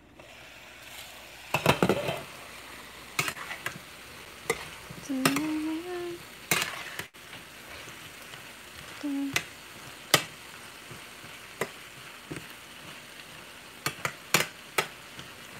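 Mixed vegetables sizzling in a stainless-steel frying pan as they are stirred with a spatula, the spatula knocking and scraping against the pan every second or two. The sizzle rises as the lid comes off at the start.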